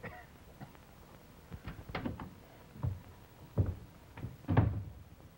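A person walking in through a door on a wooden floor: a series of irregular soft thumps and knocks, loudest about two seconds in and again near the end.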